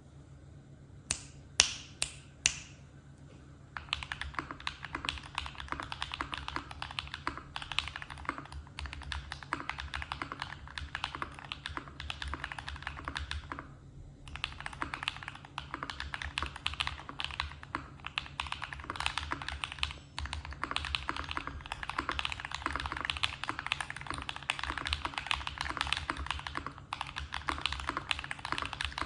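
Typing on an Akko ACR59 mechanical keyboard fitted with lubed KTT Kang linear switches and GMK keycaps, in a tape-modded case with foam. Four separate, louder clicks come about a second in, then steady fast typing starts about four seconds in, with a short pause about halfway through.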